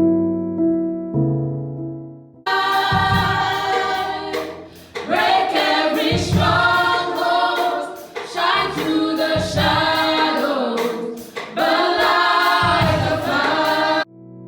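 Soft piano music that cuts abruptly, about two and a half seconds in, to a choir singing in a gospel style over a deep beat. The choir stops just as abruptly near the end and the piano returns.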